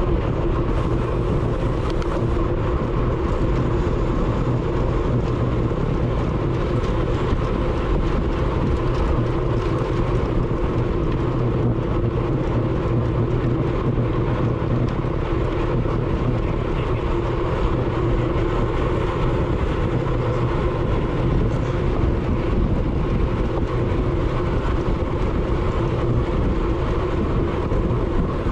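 Steady wind rush and road noise on a road bike's onboard GoPro at race speed, with a low steady hum underneath.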